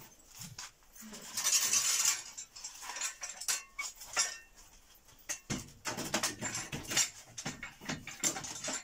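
Irregular metal clinks and knocks as a steel lifting frame is handled and clamped around a washing machine, with a brief scrape about a second and a half in.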